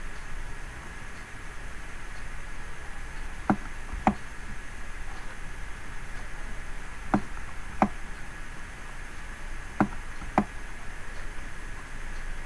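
Computer mouse clicks: three pairs of short sharp clicks, the two in each pair about half a second apart, over a steady hiss with a faint high tone.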